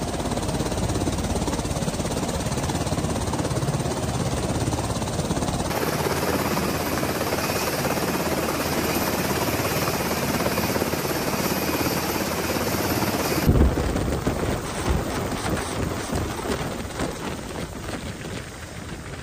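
UH-60 Black Hawk helicopter running with its rotors turning, a steady heavy rotor and turbine noise. In the last few seconds the sound turns uneven and gradually fainter as the helicopter lifts off and flies away.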